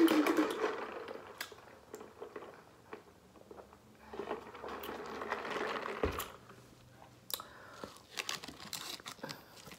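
Soda being sipped through a straw from a fast-food cup, then hands handling a sauce-covered sandwich on a plate, with a scatter of small clicks and crinkles.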